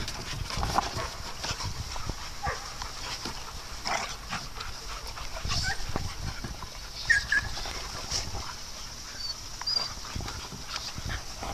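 Several dogs play-fighting close by: short, scattered yips and scuffles, with a brief high whine about seven seconds in.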